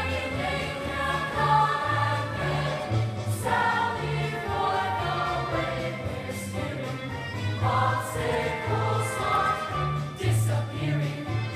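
Musical-theatre ensemble number: a chorus of voices singing over upbeat accompaniment, with a bass line stepping between notes.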